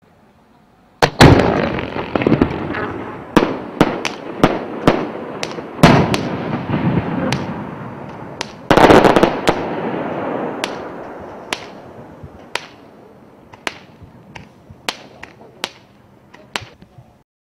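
Multi-shot aerial fireworks (a 'brocade crown to green dahlia' item) firing a run of shells: sharp bursting reports, the loudest about a second in, near six seconds and near nine seconds, each followed by a long fading tail. Toward the end the reports come more sparsely and stop just before the end.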